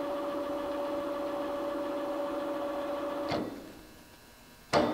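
Electric motor of a Blanchard 20-36 rotary surface grinder's power head raise and lower, humming steadily. A little past three seconds in it stops with a clunk and the sound falls away. Near the end a sharp click restarts it with a slightly different hum.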